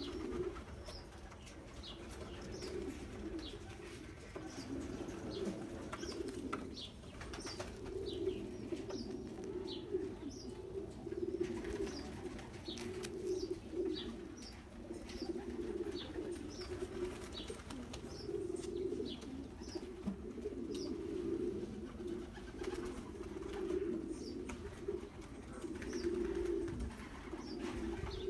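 Racing pigeons cooing without a break, several birds' coos overlapping, with short high chirps scattered throughout.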